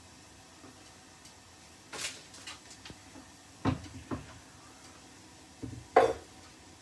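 A few sharp kitchen knocks and clunks against a quiet room: four separate knocks, the loudest about six seconds in.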